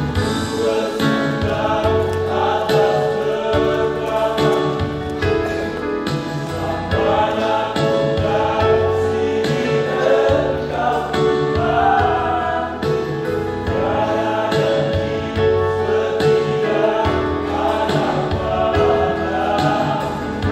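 Mixed choir of young women and young men singing a gospel hymn in harmony, the voices holding long chords that change together every second or two.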